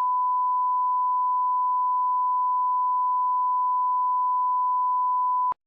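Steady 1 kHz sine-wave reference tone, one unbroken pitch that cuts off with a click near the end. It is the kind of line-up test tone laid at the head of a broadcast recording.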